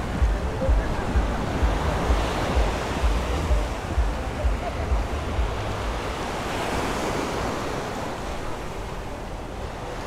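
Small ocean waves breaking and washing up the sand in a steady wash of surf, with wind rumbling on the microphone in gusts that ease off about halfway through.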